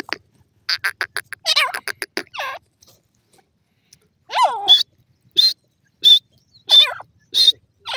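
Grey francolin (teetar) calling: a quick run of short sharp notes, then after a pause of about a second and a half, a series of calls repeated about every two-thirds of a second.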